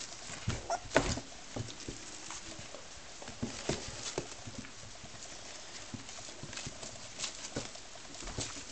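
Labrador puppies scrambling about on the whelping-box pad: irregular light taps and scratches of small paws and claws, with a brief squeak about a second in.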